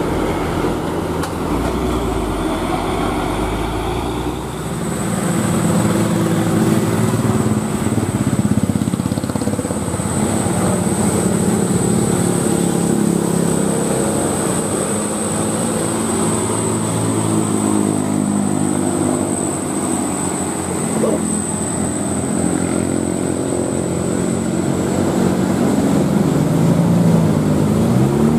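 Diesel engines of loaded Mitsubishi Canter dump trucks pulling uphill, their engine note rising and falling, with motorcycles passing. A thin, steady high-pitched tone runs through most of the stretch.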